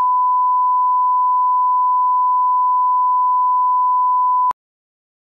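Steady 1 kHz reference test tone, a single pure beep held for about four and a half seconds, then cut off abruptly into silence.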